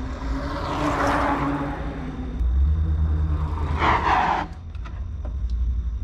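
A vehicle passing by: a rushing sound that swells about a second in and then fades, over a steady low rumble, with a brief louder rush about four seconds in.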